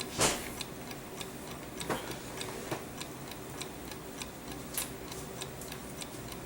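Clock ticking steadily, a quick even run of light ticks, with one brief louder rustle just after the start.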